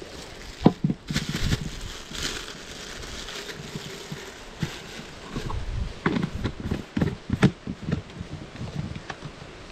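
Handling noise: a plastic bag crinkling as it is stuffed into a plastic cooler, with scattered knocks and clicks against the cooler and the boat.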